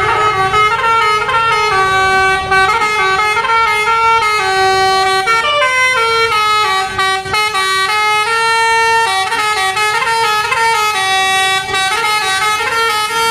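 A bus's multi-tone Basuri 'telolet' horn playing a tune, its held horn notes stepping from pitch to pitch without a break.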